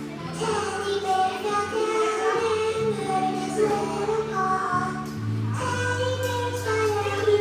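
Children's song: a high singing voice carrying a melody over backing music with held bass notes that change every second or so.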